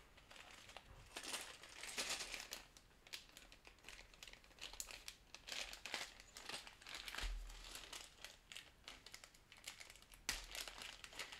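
Small clear plastic bags of game pieces crinkling in irregular rustles as they are handled and pulled open.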